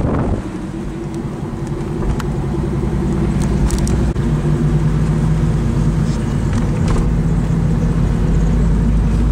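Car engine running steadily with road rumble, heard from inside the moving car; the low rumble grows stronger about two seconds in and the overall sound gradually gets louder.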